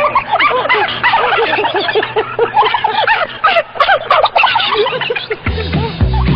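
A comic sound effect of many overlapping high cackling calls, each rising and falling, packed densely together. Music with a heavy bass line takes over about five and a half seconds in.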